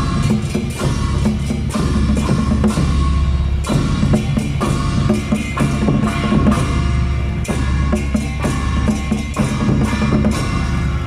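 Chinese barrel drums beaten fast and continuously with sticks, with hand cymbals clashing along: temple procession percussion.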